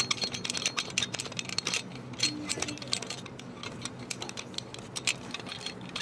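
A fire alarm pull station being handled and turned to reset it: a fast, uneven run of small metallic clicks and rattles.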